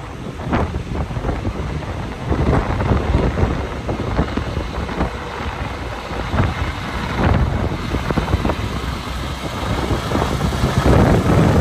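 Diesel engine of a Kenworth prime mover running at low speed as the truck pulls through and draws close, growing louder near the end, with wind buffeting the microphone.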